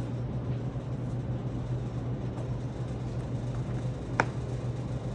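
Room tone: a steady low hum with a faint even hiss, and a single sharp click about four seconds in.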